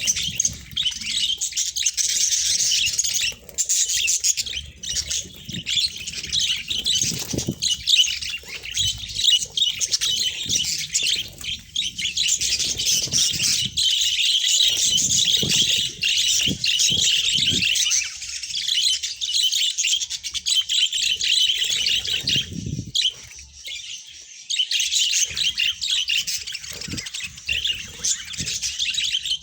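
A flock of budgerigars chattering and chirping continuously in dense, overlapping high calls.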